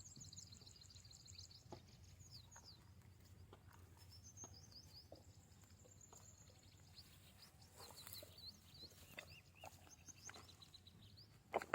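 Faint bird chirping: small birds calling in quick high-pitched chirps, with a few soft clicks and one sharper knock near the end.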